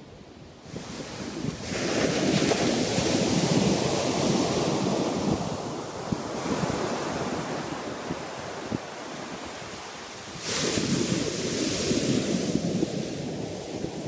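Ocean surf breaking on a sandy beach. A wave crashes about a second and a half in and washes up the sand, and a second wave breaks about ten and a half seconds in.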